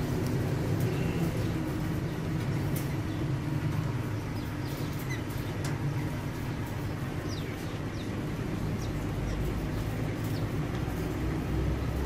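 A steady low rumble, with a few faint, short chirps from caged parakeets and scattered light clicks.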